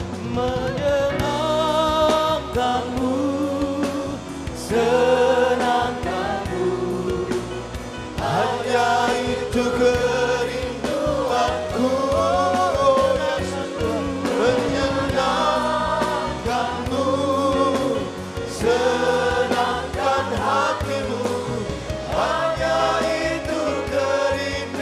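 Worship song sung by a group of voices with a band, in sung phrases of a few seconds each over sustained low instrument notes.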